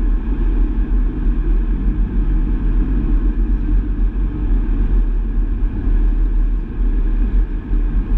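Vauxhall Astra GTC driving along at a steady pace: a continuous low rumble of road and engine noise with no change in pitch.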